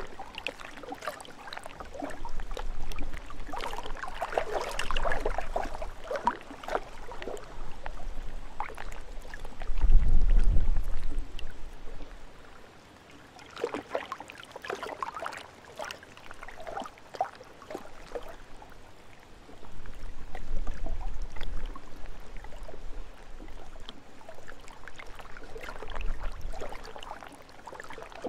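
Small lake waves lapping and splashing at the shore, in irregular spells of splashes that come and go every few seconds. Low wind rumble on the microphone comes in gusts, strongest about ten seconds in.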